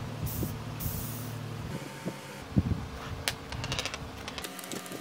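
Fingers handling a tiny motor and a small 3D-printed plastic holder: a soft rubbing hiss in the first second or so, then a sharp click about two and a half seconds in and a run of small ticks, over a steady low hum.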